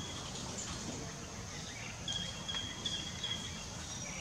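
Steady outdoor background noise, with a run of short high chirps about two seconds in.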